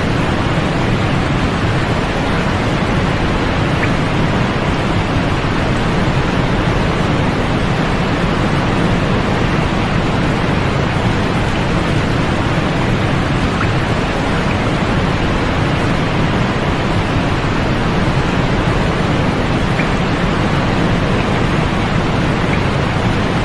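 Steady white-noise sleep track: an even, unchanging hiss, fuller in the low end and falling away in the highest treble, with no breaks or events.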